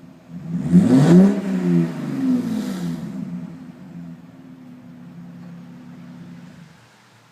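2003 Cadillac CTS V6 running with its stock muffler cut off (muffler delete). It is revved once with a quick rise and fall in pitch, blipped again more lightly, then settles to idle and stops near the end.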